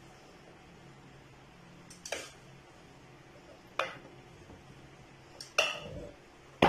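Wooden chopping board and knife knocking against a plate as diced watermelon rind is pushed off the board onto it: four sharp clacks a second or two apart, the third with a short scrape.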